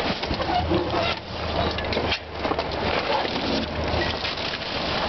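Subaru station wagon crawling over a pile of loose river rocks: stones crunching, grinding and clattering under the tyres in quick irregular bursts, over the low steady hum of the engine.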